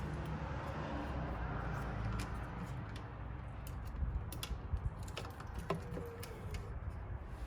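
Scattered light clicks and taps of plastic headlight parts and connectors being handled and fitted, most of them about four to six seconds in, over a steady low rumble.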